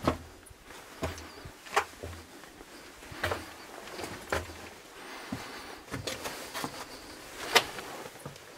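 Slow, irregular footsteps scuffing on a rough lava-rock cave floor, about one step a second, the loudest near the end.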